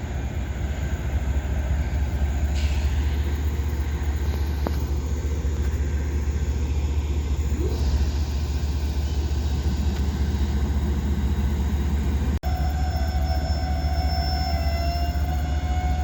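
Union Pacific freight train creeping forward, a steady low rumble from the locomotives and cars. About three-quarters of the way in, a thin high metallic squeal from the wheels joins in and holds to the end.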